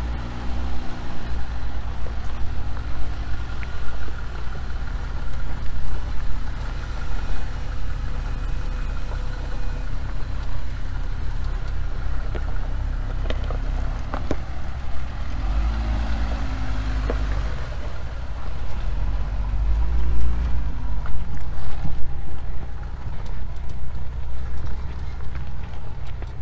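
Jeep Gladiator Mojave on the move: steady engine and road rumble, with the engine note climbing and falling back three times.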